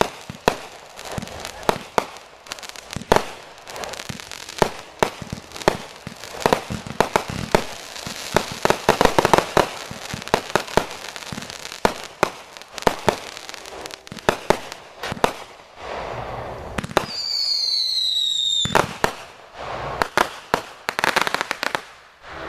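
Consumer fireworks going off in quick succession: many sharp bangs and firecracker pops, with a dense crackling stretch near the middle. About two-thirds of the way in, a falling whistle sounds for a second or two, then more bangs follow.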